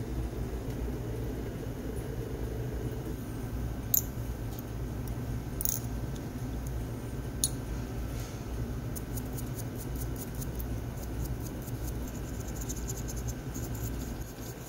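A few sharp clicks of small brass watch parts, the barrel and cover of a vintage Rolex Submariner mainspring, touching a glass dish. From about nine seconds in, a small brush scrubs the barrel in cleaning fluid with a rapid, fine scratching. A steady low hum runs underneath.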